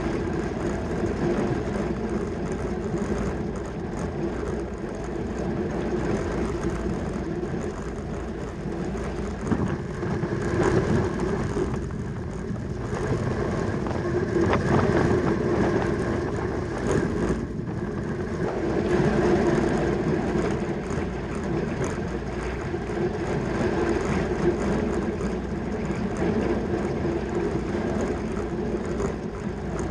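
Steady rush of wind and rolling tyre noise from a track bicycle riding at race speed, swelling and easing every few seconds.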